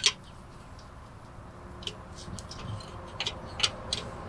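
A steel wrench clicking against the housing of a heavy truck's rear differential as it is fitted in place: one sharp clink at the start, then a scatter of light irregular metal clicks in the second half.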